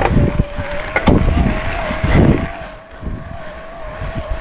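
Electric mountain bike's motor whining at a steady, slightly wavering pitch under pedal assist, over wind and the rumble of tyres on rough trail with a few knocks from the bike.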